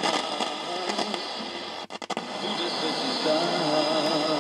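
A radio station's broadcast playing through a small transistor radio's loudspeaker. An IF signal is being injected at its detector diode from a second radio. It cuts out briefly about two seconds in. The station coming through shows that the detector and audio stages of the radio under test are working.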